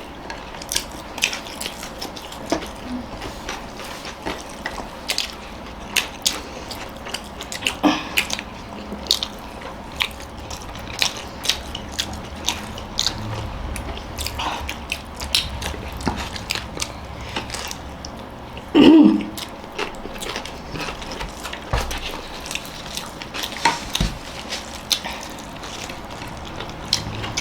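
People chewing and biting food close to the microphone: a steady run of short, sharp mouth clicks and smacks. A brief vocal sound about two thirds of the way through.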